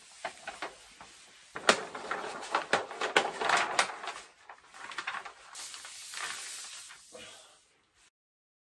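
A large rolled paper wall map being unrolled and spread flat by hand, the sheet crackling and rustling in quick sharp bursts, then a smoother sliding rustle as it is laid down. The sound cuts off suddenly near the end.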